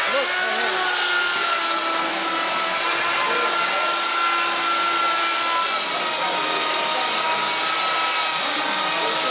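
Electric woodworking power tool running steadily with a constant whine as it lightly dresses the edge of a plywood boat part to true it.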